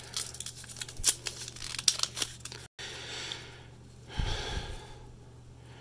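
Foil trading-card pack wrappers crinkling and cardboard cards being handled: a run of small sharp clicks and rustles, a split-second dropout about halfway, then softer rustling.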